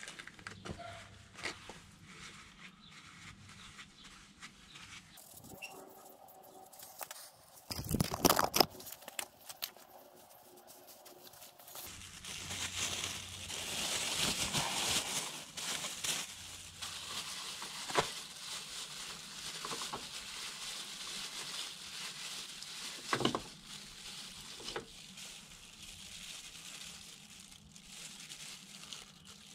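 Hand-work noises during a scooter oil change: rustling and crinkling with scattered clicks and knocks of tools and parts, a louder clatter about eight seconds in and a sharp knock near the end.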